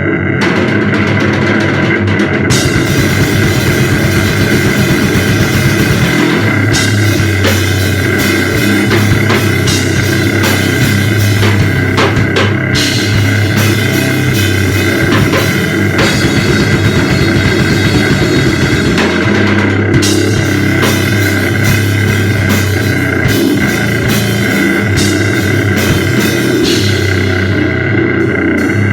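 Loud instrumental powerviolence grindnoise with no vocals: fast, dense drum-kit hits and cymbals under a heavily distorted noise wall from a Diabolik fuzz pedal. Steady high feedback-like tones ring through the whole passage. The full, busier texture fills in about two and a half seconds in.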